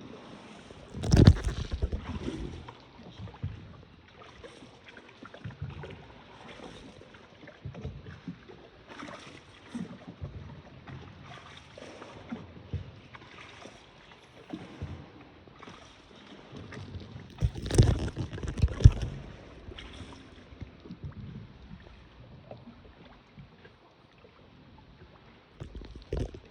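Small paddled boat on water: irregular splashes and knocks of paddles and hull, with a louder cluster of thumps about a second in and another about two-thirds of the way through.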